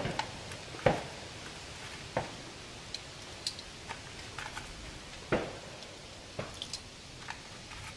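Small sharp metallic clicks and ticks at irregular intervals, with louder knocks near the start, about a second in, about two seconds in and about five seconds in: .22 long rifle cartridges being dropped one by one into the tube magazine of a Henry lever-action rifle.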